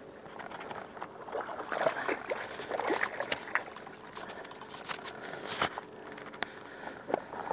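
Hooked sea bass splashing and thrashing at the water's surface as it is reeled in, in irregular bursts through the first few seconds, then a few sharp clicks.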